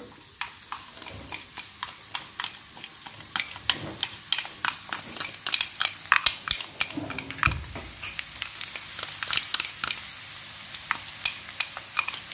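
Blended spice paste of garlic, shallots and chili dropped into hot oil in a wok, sizzling steadily with many sharp pops and crackles.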